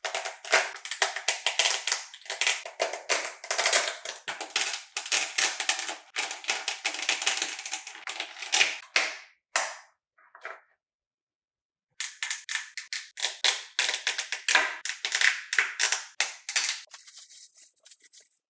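Resin 3D-print supports being snapped and broken off a printed part by hand: a dense run of sharp cracks and clicks, several a second. The snapping stops for about a second and a half just past the middle, then resumes and thins out near the end.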